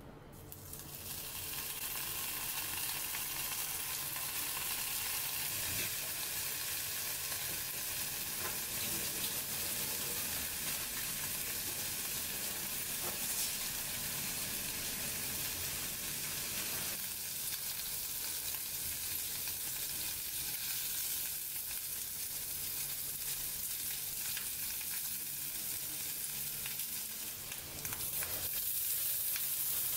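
Bacon strips sizzling in a hot frying pan, the hiss starting about a second in as the strips go in. Near the end it grows louder as sausages are added to the pan.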